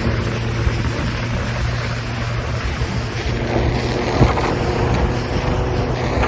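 Motorboat engine running steadily, with wind buffeting the microphone and water rushing past the hull. A single thump about four seconds in, likely the hull striking a wave.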